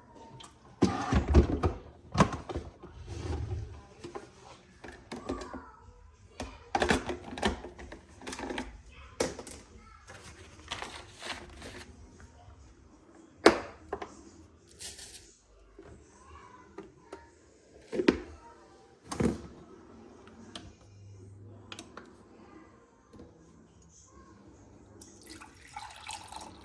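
A run of irregular knocks, thuds and clatter from things being handled, with stretches of running liquid.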